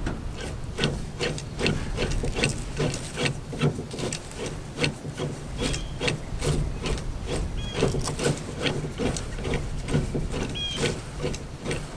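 Heavy plastic dragsheet of a truck bed cargo unloader being rolled up onto its roller bar: a run of irregular clicks and knocks, two or three a second, over rubbing, with a few short squeaks.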